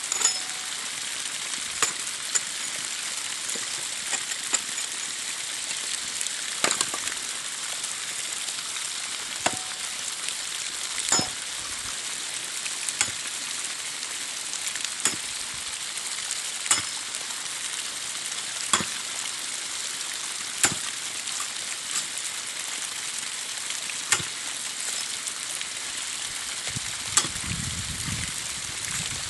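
Hammer blows striking bricks, sharp single knocks about every two seconds, over a steady high hiss.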